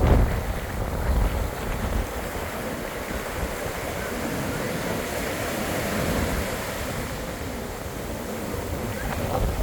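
Surf washing onto a beach, with gusty wind buffeting the microphone as a low rumble.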